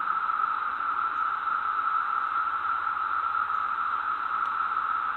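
Steady, unchanging hiss, a band of noise sitting in the middle of the pitch range with nothing else on top of it.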